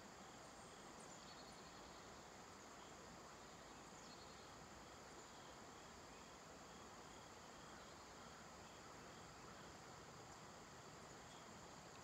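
Near silence: faint outdoor ambience with steady, evenly pulsing high-pitched insect chirping, like crickets, over a soft hiss.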